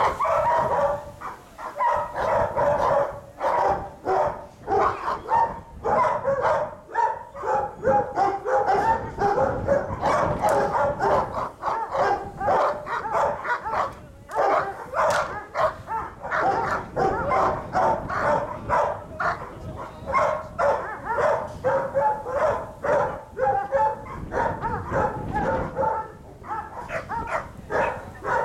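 Dogs barking in a rapid, unbroken series, about three barks a second: protection-trained dogs being worked up by a decoy holding a bite sleeve.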